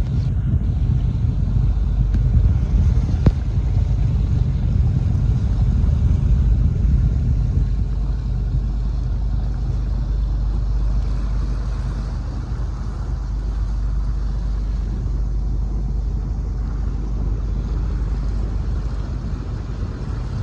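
Steady low rumble of a boat's motor running on the water.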